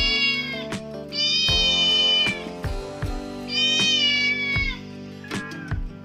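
A recorded cat meow sound effect played over and over: long, high meows of about a second each, three of them, over background music with a drumbeat.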